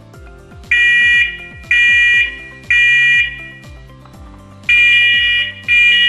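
Two First Alert SA511CN2-3ST wireless interconnected smoke alarms sounding together in test mode. They give loud, high beeps in the temporal-three pattern, the standard smoke-alarm evacuation signal: three half-second beeps a second apart, a pause, then three more. Background music runs underneath.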